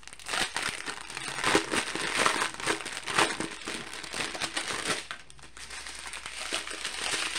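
Thin clear plastic packaging crinkling and rustling in the hands as a strip of small sealed packets of rhinestone drills is pulled from its bag. The crackling eases for a moment about five seconds in, then carries on more softly.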